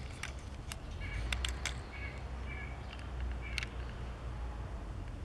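Light clicks and taps as a small Matchbox Hardnoze toy fire truck, plastic body on a metal base, is handled and turned in the fingers, over a low rumble. There is a cluster of clicks in the first two seconds and another near the end, with a few short high chirps in between.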